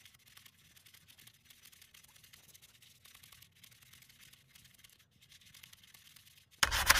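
Faint scratchy rasping of 120-grit sandpaper rubbed by hand over a brake rotor's face as the rotor is turned, scuffing it before new pads go on. Near the end a sudden loud rush of noise cuts in.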